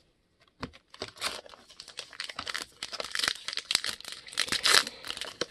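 A trading card pack's wrapper being torn open and crinkled by hand, a dense run of rapid crackles starting about half a second in.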